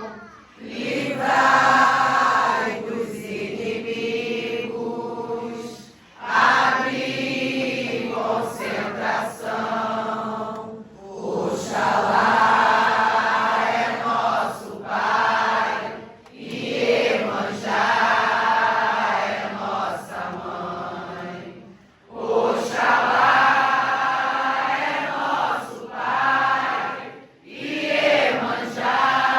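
A group of voices chanting a slow devotional song together, in long phrases of about five seconds each with brief pauses between them.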